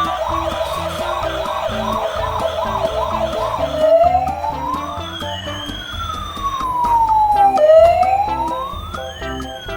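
Toy ambulance's electronic siren: a fast warble of about two to three cycles a second for roughly four seconds, then a switch to a slow wail that rises and falls twice.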